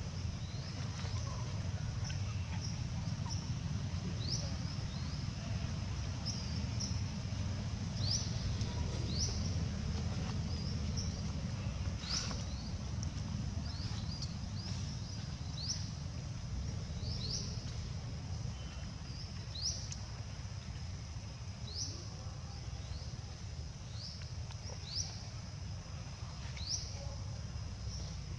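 Outdoor ambience: a bird repeats a short rising chirp about once a second, over a faint steady high insect-like tone and a steady low rumble.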